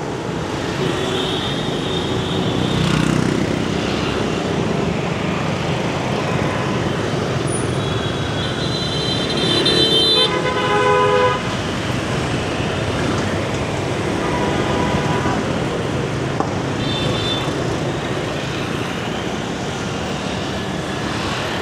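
Heavy motor-scooter traffic running past on a city street, with horns tooting several times; the longest and loudest horn blast comes about halfway through.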